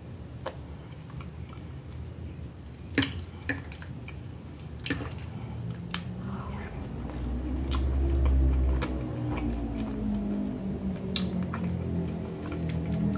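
Close-up chewing of soft boiled vegetables and meat, with sharp clicks of a fork against the plate. From about six seconds in, a low hum with a slowly bending pitch sounds under the chewing.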